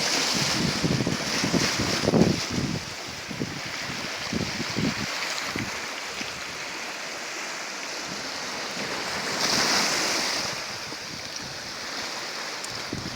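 Sea waves washing onto the shore, with a louder wash about ten seconds in. Wind buffets the microphone in gusts during the first few seconds.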